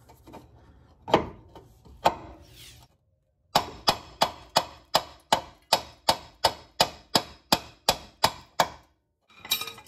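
Hammer blows on the steering knuckle of a 2003 Saturn L200, driving out the lower ball joint stud. A few scattered strikes come first, then a steady run of about sixteen blows, roughly three a second.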